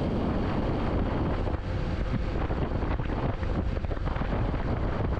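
Steady wind rush buffeting the microphone of a rider on a moving motorcycle, with the bike's running and road noise low underneath.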